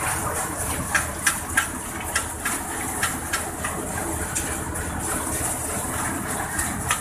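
A groundnut multicrop thresher running steadily, with a low mechanical rumble and hiss. Scattered sharp clicks come through, most of them in the first half.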